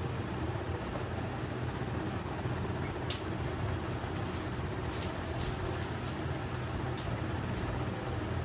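Steady low rumbling hum, with a few light clicks scattered through the middle.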